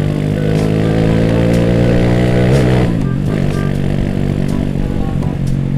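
Honda Astrea Grand's single-cylinder four-stroke engine running loud through a helicopter-like exhaust, heard from the rider's seat. It climbs steadily in pitch under acceleration for about two and a half seconds, drops sharply, then runs on at an even speed.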